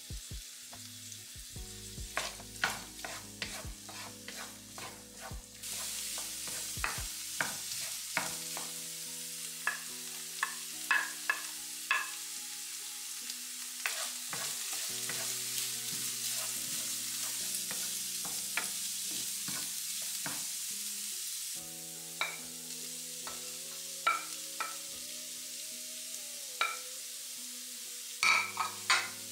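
Chicken and vegetables stir-frying in a nonstick pan: a wooden spatula scrapes and taps against the pan over a steady sizzle. The sizzle grows louder about six seconds in and drops back about twenty-two seconds in.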